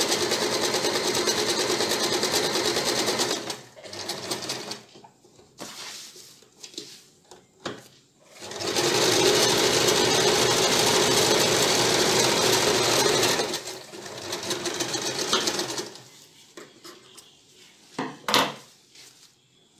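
Electric domestic sewing machine stitching cotton fabric in steady runs: about three seconds of stitching, a pause with fabric handling and small knocks, then a longer run of about five seconds that continues more quietly for a couple more. A sharp click sounds near the end.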